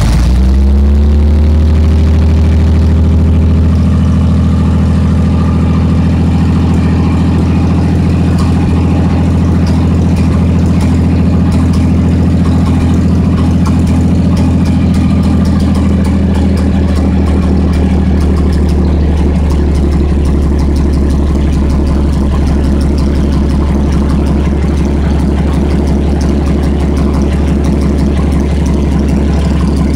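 A 1989 Chevrolet S10's 262 cubic-inch (4.3-litre) V6 engine idling steadily just after being started, its revs dropping and settling in the first couple of seconds.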